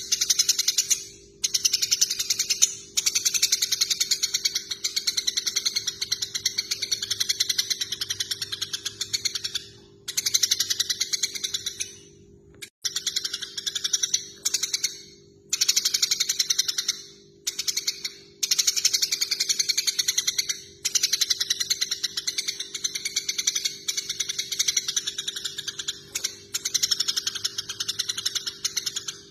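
Eurasian tree sparrows (burung gereja) chattering in fast, excited runs of high chirps, the harsh scolding calls of birds fighting. The runs come in long bursts with brief pauses between them, over a faint steady hum.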